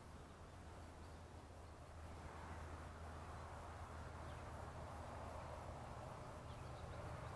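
Faint outdoor background noise: a low, even hiss that swells slightly about two seconds in, over a steady low hum and a thin, very high whine. No call or drumming stands out.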